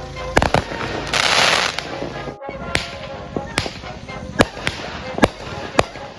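Consumer fireworks going off: a run of sharp bangs, about eight in all at uneven intervals, with a hissing crackle burst about a second in.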